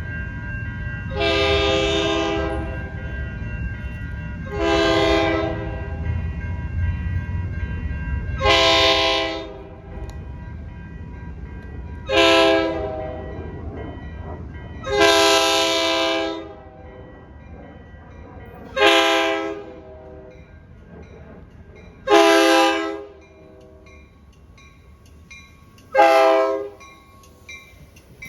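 Locomotive air horn sounding a series of about eight chord-like blasts, some longer and some shorter, spaced roughly three to four seconds apart. The train's low rumble fades out after about ten seconds.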